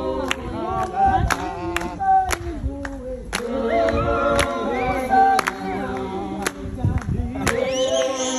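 A group singing a traditional isiXhosa song in unaccompanied call-and-response style, with hand-clapping keeping an even beat about twice a second.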